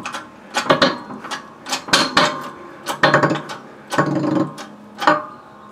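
A shop press being worked by hand to press a ball bearing onto an electric motor's shaft, pushing on the inner race through a socket: a run of irregular metallic clicks and knocks from the press and the parts as the bearing is driven down to seat.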